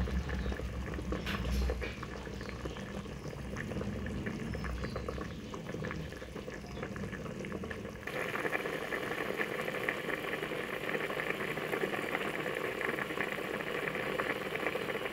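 Pangas fish and cauliflower curry boiling in a pot, a steady crackling bubble. A low rumble sits under it for the first couple of seconds, and the bubbling turns brighter and a little louder about eight seconds in.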